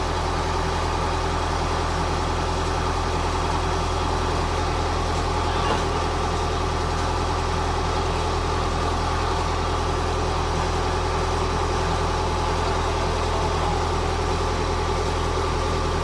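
Large engine idling steadily at a constant speed, with no change in pitch.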